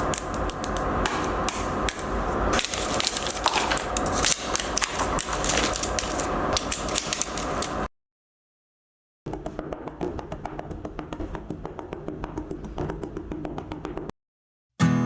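Quick, irregular tapping and knocking of small-scale woodworking, like light hammering on small pieces of wood. It cuts out abruptly twice into dead silence.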